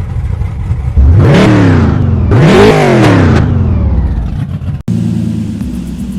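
Car engine revved hard twice in quick succession, each rev climbing in pitch and then falling away. It breaks off sharply near the end and a steady low tone follows.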